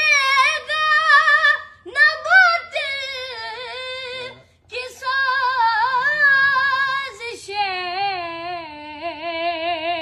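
Female voice singing an unaccompanied devotional Urdu kalam in long, ornamented held phrases with a wavering vibrato, pausing briefly for breath twice.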